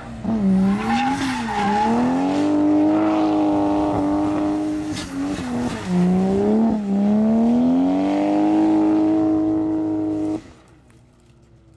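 Nissan Silvia S13 drift car's engine revving hard while the car drifts with its rear tyres spinning and squealing. The engine's pitch swings up and down several times, then climbs and holds high. The sound cuts off suddenly near the end.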